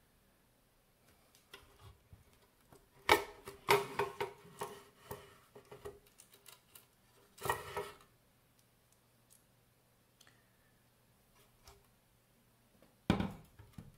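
Clicks and knocks from handling a metal avionics enclosure and hand tools during a teardown: a busy run of knocks with a short metallic ring, then a single louder knock about halfway through and another near the end.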